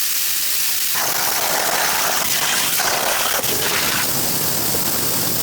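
Plasma cutter hissing steadily while cutting steel parts on a plasma cutting table.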